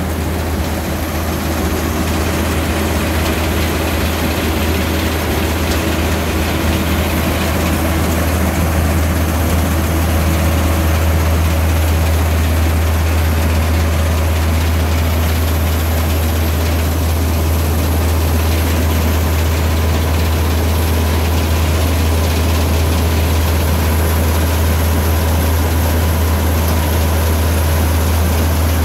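John Deere 1188 combine harvester's diesel engine running steadily, with a constant low hum.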